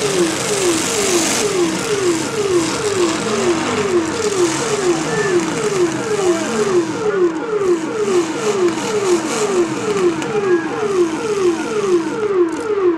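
Demolition derby cars' engines running under load, with a loud siren-like tone that falls in pitch over and over, about two and a half times a second.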